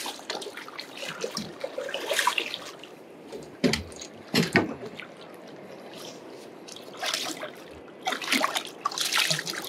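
Sea water splashing and dripping in irregular bursts around a hooked bull huss being brought up to the boat.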